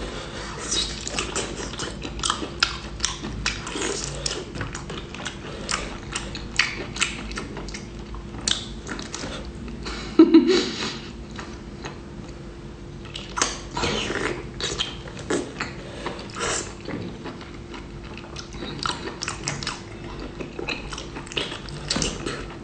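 Close-up chewing and biting of seafood, with many short, irregular wet clicks and crunches and a louder burst about ten seconds in, over a faint steady hum.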